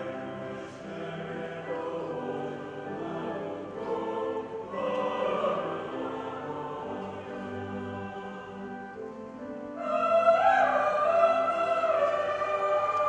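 School choir singing a choral piece in several parts with held notes. It grows louder about ten seconds in, when a strong higher line enters.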